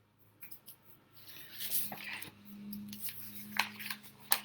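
A series of short scratching and rustling strokes, some brief and some drawn out, over a low steady hum.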